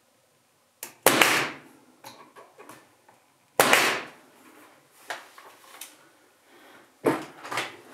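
Pneumatic brad nailer driving brads into a wooden frame: three sharp shots, about a second in, about three and a half seconds in and near the end, each with a brief fading hiss, with lighter clicks of the tool being handled between them.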